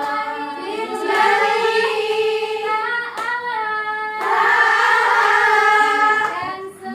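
A group of voices singing an Indonesian devotional song together, with long held notes.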